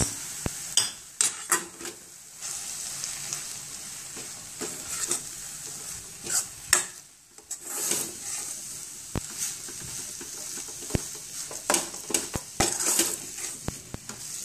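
Steel spoon scraping and clinking against a stainless steel kadhai, stirring gram flour into fenugreek leaves frying in a little oil. Irregular clicks of metal on metal over a steady sizzle.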